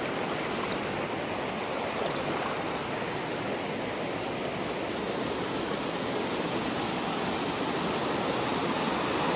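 Steady rushing of a waterfall and creek: a continuous, even hiss of falling and running water, growing slightly louder near the end.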